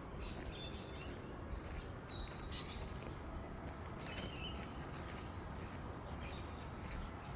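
A few short, high bird chirps scattered over steady low background noise.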